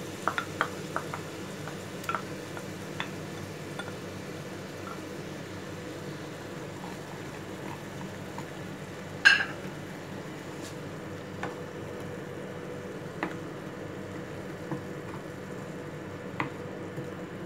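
Thick tomato gravy simmering with a low steady sizzle in a frying pan while a spatula stirs it, scraping and tapping against the pan now and then. There is one louder clack about nine seconds in.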